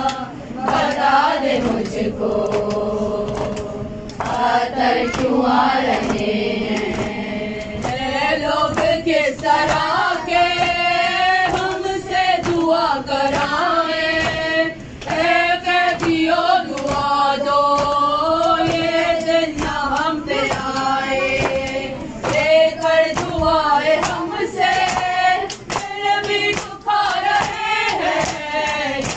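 Women's voices reciting a noha, a Shia Muharram lament, in a slow chanted melody.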